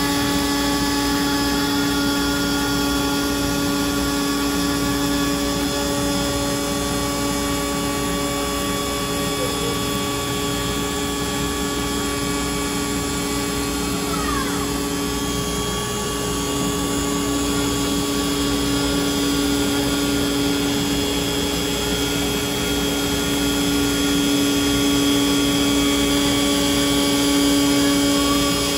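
CNC router spindle running steadily while its bit carves a wooden sign, a constant whine at several pitches over the rushing noise of the cut.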